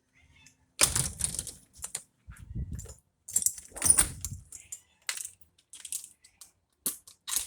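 Irregular clicking, rustling and knocking of things being handled close to the microphone, with a few dull thumps in the first half.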